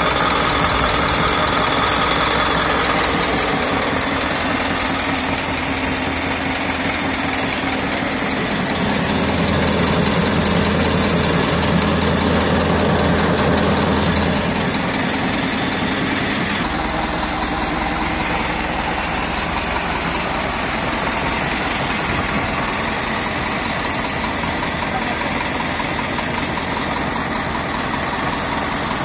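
Diesel tractor engine idling steadily, a little louder for a few seconds near the middle.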